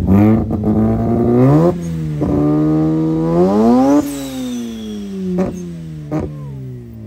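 A car engine revving up hard twice, with a brief drop between the two climbs, then the revs falling away slowly over the last few seconds. Two sharp cracks come as the revs fall.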